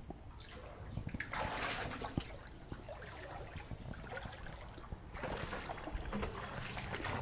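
Shallow creek water splashing and trickling as a seine net is pulled and lifted through it. The splashing comes in two spells, the first about a second in and the second around five seconds in.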